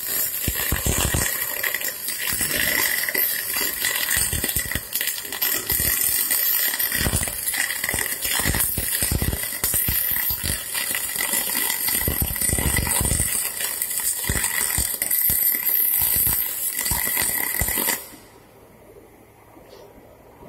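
MIG welding arc on aluminium: a dense crackling hiss with irregular sharp cracks as the aluminium filler wire feeds into the weld pool. It runs for about eighteen seconds and cuts off near the end when the arc is broken.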